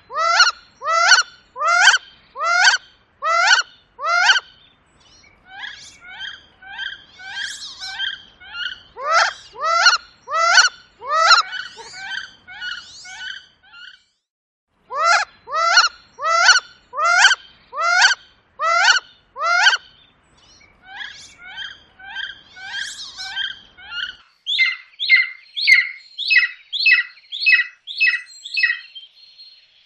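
A bird calling in runs of loud, rising calls, about one and a half a second, with softer calls in between. Near the end a different, faster series of calls takes over.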